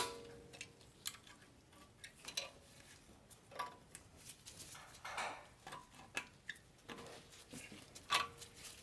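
Brake caliper anti-rattle spring being worked into place on a Mercedes E350 front caliper: scattered light metallic clicks and ticks, with a short scrape about five seconds in. The sharpest clicks, at the start and near the end, leave a faint ring.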